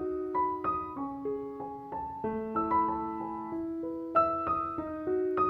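Background piano music: a gentle melody of single struck notes that ring on, a new note every third to half second.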